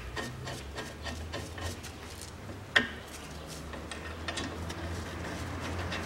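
Scattered light metallic clicks and rubbing as the guide bolts of a front brake caliper are threaded in by hand, with one sharper click a little under three seconds in.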